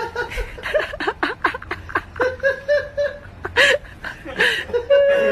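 A person laughing in short repeated bursts, with a few longer drawn-out notes.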